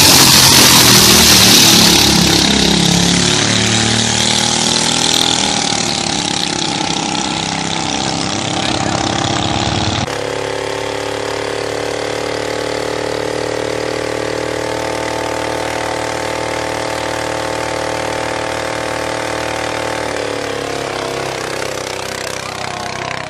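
Single-cylinder diesel engines of two-wheel walking tractors running flat out as they race, loudest over the first two seconds of the launch. About ten seconds in the sound changes to one tractor engine holding a steady high-revving drone.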